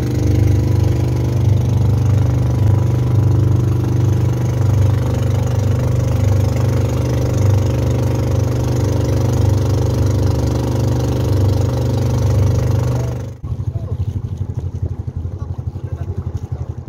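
Outrigger boat's engine running steadily at cruising speed, with water rushing past the hull. About thirteen seconds in it cuts off abruptly to a quieter, fluttering engine-and-water sound.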